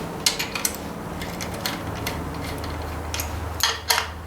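Irregular metallic clicks and clinks of hand tools and bolts as a cover is bolted on, with a few sharper clicks near the start and a cluster near the end.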